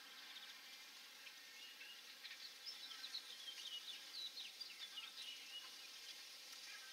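Faint bird chirping: a quick run of short, high, sliding notes starting about two seconds in and fading near the end, over a steady hiss.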